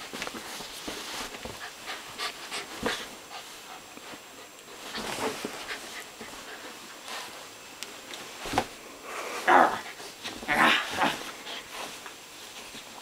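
A dog panting and scuffling in rough play with a person on a couch, with a few louder short bursts about nine to eleven seconds in.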